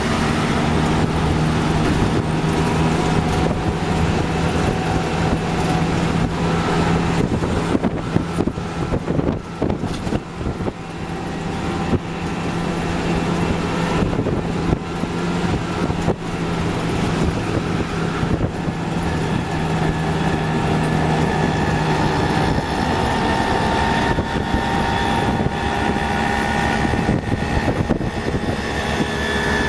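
Auto-rickshaw engine running steadily while the rickshaw drives along a road, heard from inside the open passenger cabin with road and wind noise. About two-thirds of the way through, the steady low drone gives way to higher engine tones as other auto-rickshaws draw alongside.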